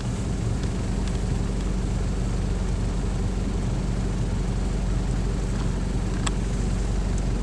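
A vehicle engine idling, a steady low hum, with a faint click about six seconds in.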